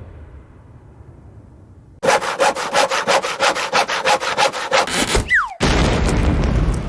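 Cartoon sound effect of a hand saw cutting rapidly through wood, about five strokes a second for some three seconds, followed by a short falling whistle and a loud crash that fades away.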